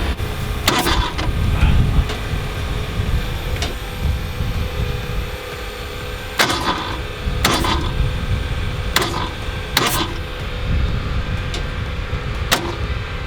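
Cylinder leak-down test being set up on an engine: a handful of sharp clacks, some in pairs about a second apart, over a steady low rumble.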